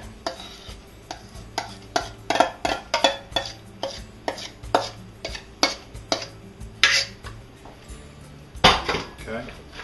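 Metal spoon scraping and knocking against a stainless steel mixing bowl as a thick creamy dressing is scooped out of it; a run of quick strokes, about two or three a second, with a louder knock near the end.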